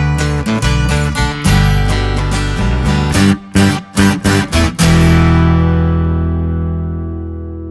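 Background music: guitar strumming in a steady rhythm with a few sharp stops, ending on a long chord that rings and slowly fades over the last few seconds.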